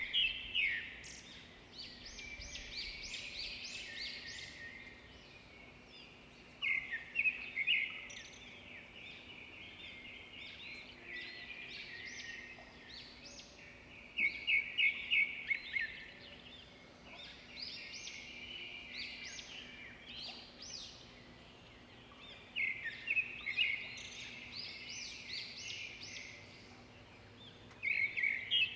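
Birds chirping, with a bout of rapid, high-pitched notes about every seven seconds, each starting with a quick run and trailing off into scattered chirps, over faint steady background noise.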